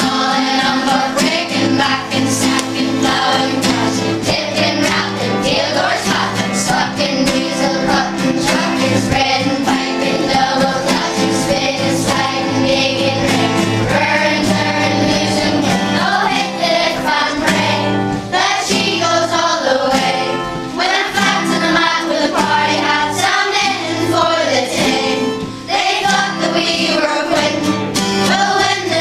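A group of schoolchildren singing a hymn together, accompanied by an acoustic guitar.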